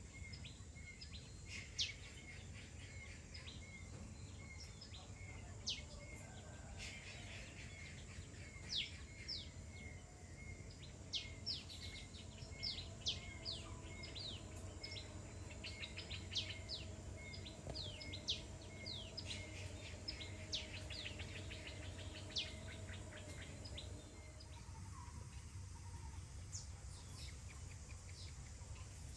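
Several birds chirping in the trees with many short, sharp, high chirps, and a softer note repeated at an even pace about every two-thirds of a second. A steady low background rumble runs underneath.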